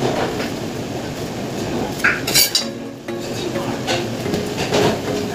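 Light knocks and clinks of dough and a roll of cling film being handled on a stainless steel worktable, with a louder clatter about two and a half seconds in, over a steady kitchen background noise.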